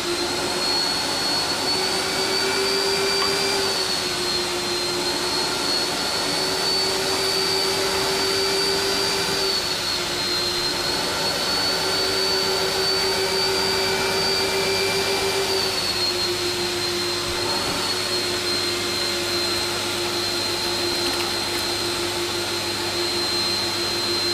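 Carpet cleaning machine's vacuum motor running with a steady whine that rises slightly in pitch and drops back three times.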